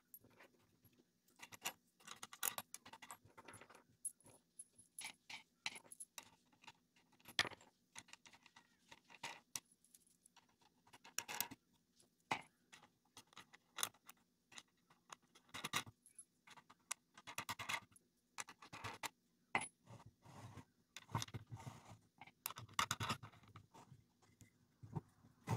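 Steel washers and wing nuts clinking and rattling as they are picked up and threaded onto the threaded rods of a homemade glue clamp, in irregular runs of small metallic clicks.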